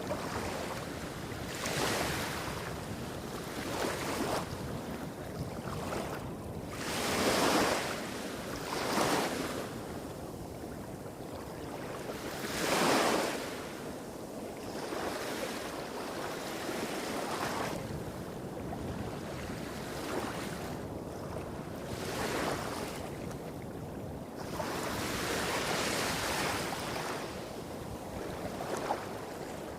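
Small waves breaking and washing on a beach, each one a swell of hiss every few seconds, over a steady low rumble of surf hitting rocks farther off.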